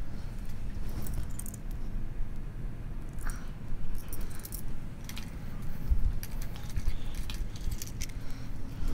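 Handling noise from screen mesh being pulled and pressed into a screen track: scattered light clicks, taps and rustles at irregular moments, over a low steady rumble.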